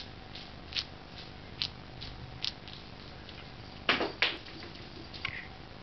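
A kitten's paws on a rug and a wooden floor: a few faint light taps, then two louder thumps about four seconds in as it dashes off.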